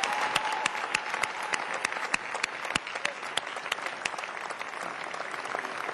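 Large audience applauding, many hands clapping at once, the applause slowly dying down.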